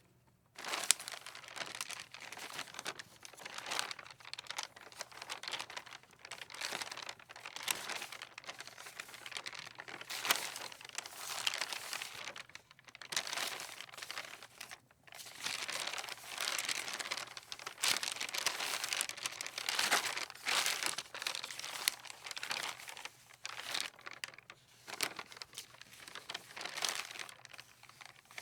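Loose sheets of paper rustling in the wind, in irregular crinkling bursts that rise and fall.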